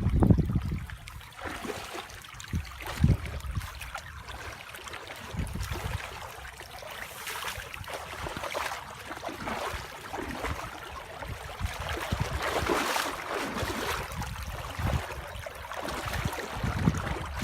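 Water splashing and trickling in uneven swells, with a few low thumps near the start.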